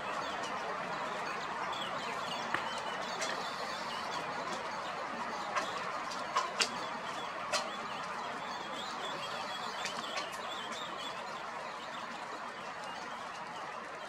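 Steady outdoor background noise with faint bird calls and a few sharp clicks, the strongest clustered about six to seven and a half seconds in.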